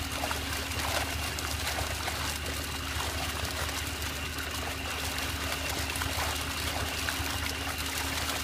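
Small-scale mud carp (Cirrhinus microlepis) thrashing and leaping in shallow water crowded inside a seine net: a continuous, dense spattering of many small splashes. A steady low hum runs underneath.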